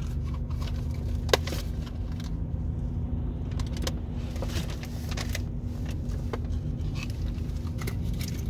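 Steady low hum of a car's idling engine, heard inside the cabin, with scattered crinkles and clicks from a paper bag and a cardboard nugget box being handled; the sharpest click comes about a second and a half in.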